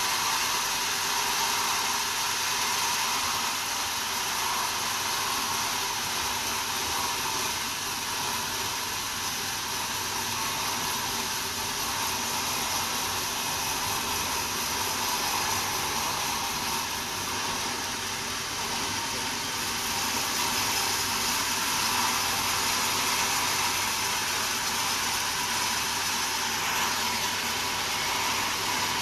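Sawmill machinery running steadily, an even whirring hiss with no breaks or changes.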